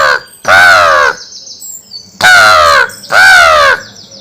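A person imitating a crow: loud, harsh caws, each about half a second and falling in pitch, given in pairs. Small birds chirp faintly in the background.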